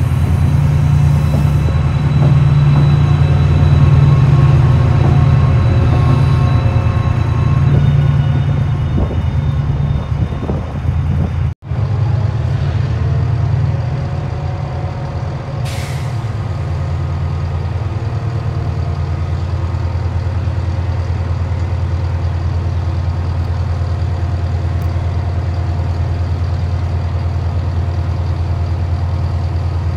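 A Class 68 diesel locomotive's Caterpillar V16 engine runs with a deep, steady drone as it hauls coaches past the platform. After a sudden break a little before halfway, two Class 68s idle side by side with a steady low drone. A brief air hiss comes a few seconds after the break.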